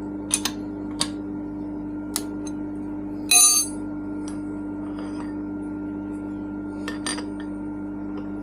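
Metal parts being handled at a milling machine vise: a few sharp metal taps and clicks, with one loud ringing metal clink about three seconds in, over a steady electrical hum.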